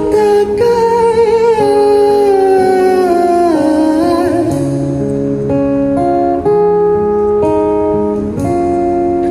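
Live pop-rock song: a male voice holds a long, wavering sung note that slides downward, over sustained chords from the backing instruments. The voice stops about halfway through and the chords carry on alone.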